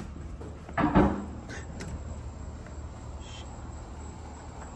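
A door latch clicking and the door swinging open about a second in, with a couple of fainter clicks after, then a steady low background hum.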